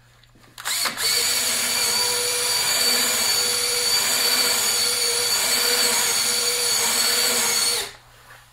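Cordless drill spinning a roto brush along a ski base. It starts up about a second in, runs at a steady whine for about seven seconds, then stops.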